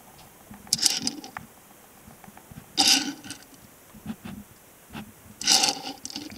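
Three short breaths close to the microphone, evenly spaced about two and a half seconds apart, with faint small handling noise between them.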